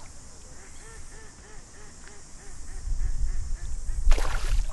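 A hooked tench thrashing and splashing at the surface near the end as it is played in. Before that, a bird calls in a quick series of short notes, about three a second.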